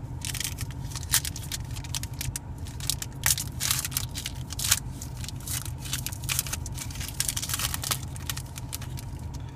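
Foil trading-card pack crinkling and tearing as it is peeled open by hand, a quick run of sharp crackles, over a car's steady low hum.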